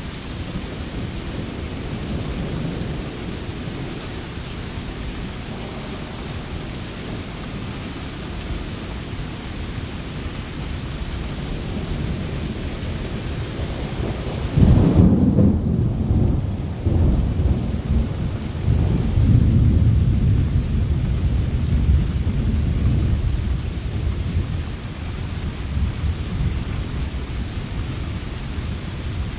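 Steady rain, with a long roll of thunder breaking in about halfway through: a deep rumble that swells twice and fades away over roughly ten seconds.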